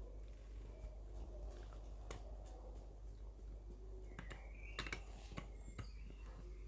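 Maltese dog gnawing a deer bone: irregular sharp clicks of teeth on hard bone, several coming close together a little past the middle.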